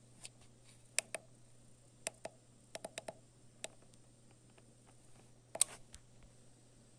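Irregular sharp clicks from the Technisat Viola 2 DAB+ radio's rotary knob and buttons as it is stepped through the station list, the loudest about two-thirds of the way in. The radio's speaker stays silent because the service is unavailable for lack of signal, and a faint steady low hum runs underneath.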